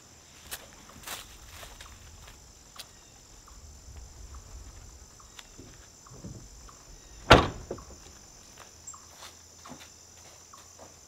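Footsteps and light knocks and rustles of bags being carried and set down, with one sharp, loud slam about seven seconds in: the Ford Transit van's side door being shut.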